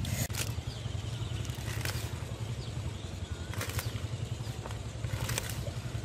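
A steady low motor-like hum, with a few short sharp clicks spaced about a second and a half to two seconds apart.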